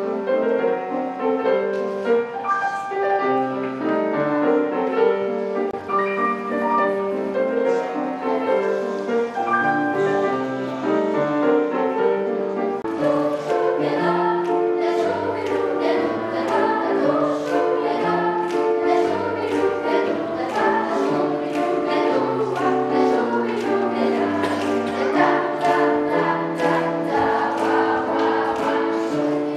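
A children's choir singing with piano accompaniment. The music grows fuller about halfway in.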